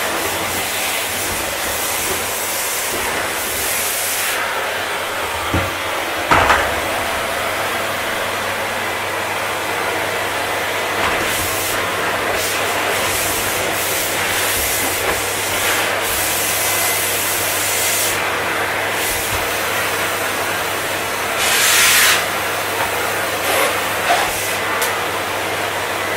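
Vacuum cleaner running steadily: a continuous rush of air over a low motor hum, with a few brief surges in the hiss.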